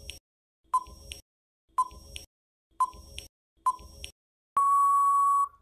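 Quiz countdown timer sound effect: four short electronic beeps about a second apart, then one longer steady beep of about a second near the end, signalling that time is up.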